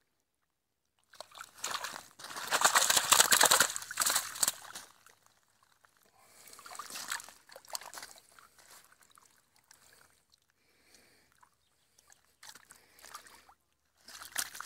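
Lake water splashing, sloshing and trickling around a keepnet full of fish held in the shallows, the fish stirring inside it. The splashing comes in uneven bouts, heaviest from about two to four seconds in, then weaker and scattered.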